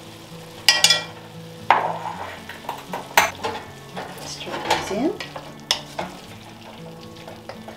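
Slotted wooden spoon stirring diced chicken, onion and peppers in an enameled cast-iron Dutch oven, with a light sizzle from the sautéing meat. A few sharp knocks and scrapes of the spoon against the pot.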